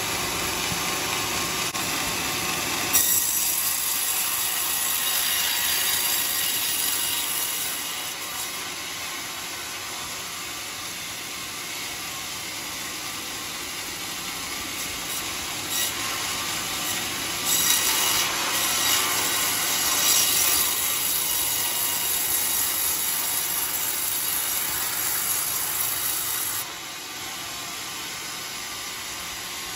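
Band sawmill blade cutting lengthwise through a coconut-palm log: a steady hissing cut over the running machine. The cut gets louder about three seconds in and again midway, then falls away near the end.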